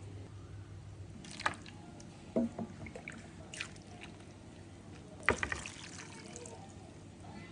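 Soup being poured and dripping, with a few sharp clinks of a utensil or dish. The loudest clink comes about five seconds in.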